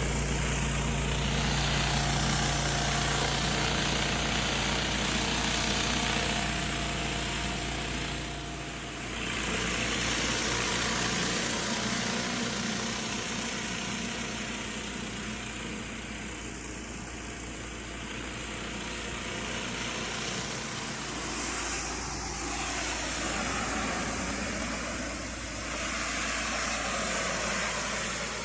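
Small engine-driven equipment running steadily under a loud, even hiss, with a low engine hum that is strongest for the first nine seconds or so and then fades back.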